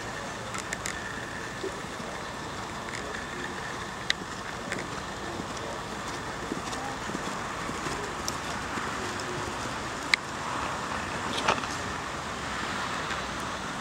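Steady outdoor background noise with no clear single source, broken by a few sharp clicks, the loudest about ten seconds in.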